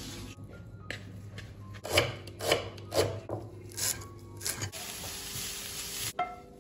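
A kitchen knife chopping leafy greens on a wooden cutting board, about two sharp strokes a second, followed near the end by a frying pan of onions sizzling as it is stirred with a wooden spatula.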